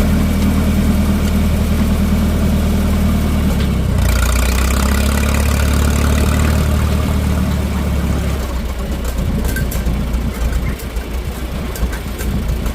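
Minneapolis-Moline M670 tractor engine, freshly rebuilt, running steadily. About four seconds in the note changes and a higher-pitched mechanical whine joins it; from about eight and a half seconds the engine sound drops lower and quieter, with scattered clicks.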